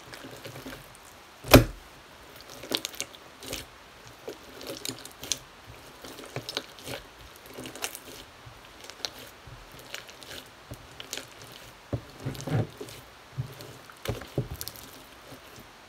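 Hands kneading and squeezing a large lump of slime: irregular wet clicks, pops and squelches as it is pressed and pulled, with one loud slap about a second and a half in.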